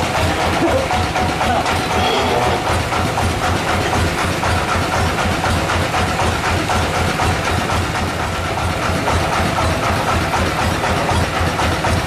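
Sawmill machinery running steadily: an engine with a fast, even low throb under a dense, continuous noise.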